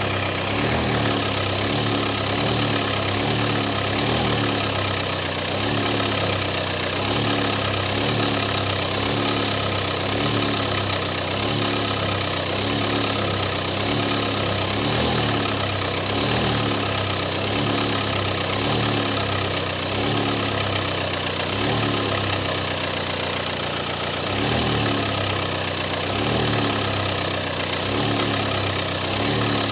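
Car engine idling with a steady, regular knocking. The knock is taken to come from an engine that had sat unused, and is expected to fade with running; the owner wonders whether it is the injectors.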